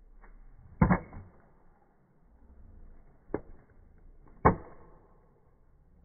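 Hatchet chopping at a stick held upright on a log chopping block: three sharp wooden strikes, about a second in, after three seconds and at about four and a half seconds, the first and last the loudest.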